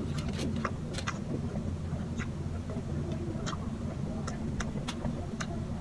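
A person chewing food with wet mouth smacks and clicks at irregular intervals, over a steady low hum.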